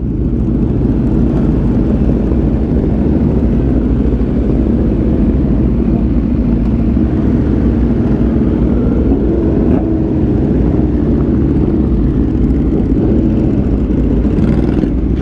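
Aprilia RSV4 1100 Factory's V4 engine running steadily through an SC Project exhaust, a loud, even low rumble without sharp revs.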